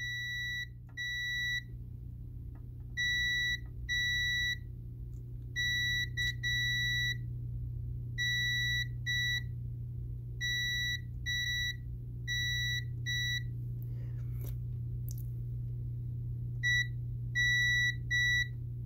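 Multimeter in continuity mode giving many short, high beeps, often in pairs, each time a probe touches the grounded side of a graphics card's VRM input capacitor. The other side of each capacitor stays silent, a sign that these power stages are not shorted to ground. The beeps pause for a few seconds about three-quarters through, then resume.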